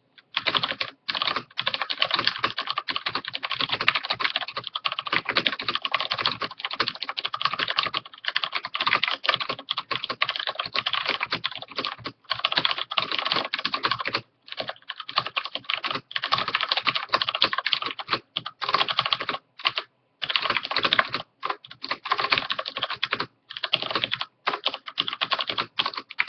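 Typing at a steady pace on a Corsair Vengeance K90 mechanical keyboard with Cherry MX Red linear switches: a dense run of key clacks, broken by brief pauses between words and sentences.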